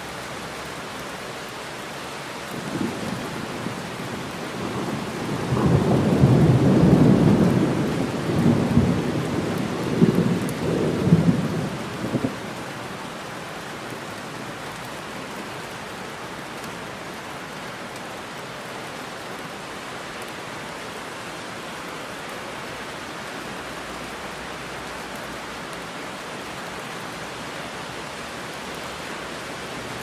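Steady rain falling, with a long roll of thunder that starts about three seconds in, builds to its loudest a few seconds later with a couple of sharper claps, and dies away by about twelve seconds in.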